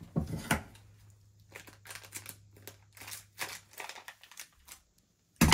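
Plastic packaging crinkling and rustling in short bursts as a small bag of sand is handled and opened, ending in a sudden very loud crackle.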